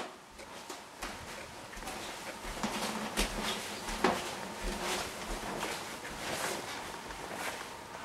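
Footsteps on wooden floorboards: soft, uneven knocks about once a second.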